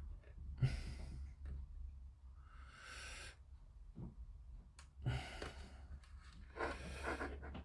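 Four breathy exhalations or sighs close to the microphone, over a low steady hum.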